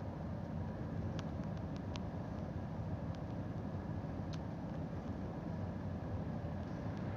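Steady low engine and road rumble heard inside a moving vehicle's cab, with a few faint clicks or rattles in the first half.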